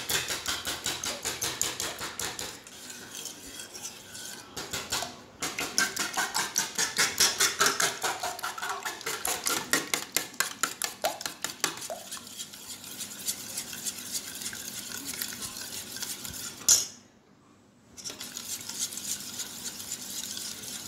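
Metal spoon beating eggs in a stainless steel bowl, a rapid run of clinks against the side of the bowl with a couple of short pauses.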